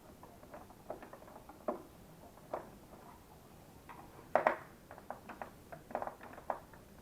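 Irregular light clicks, taps and knocks of plastic parts being handled as an LG vacuum cleaner is taken apart by hand, with the loudest knock a little past halfway.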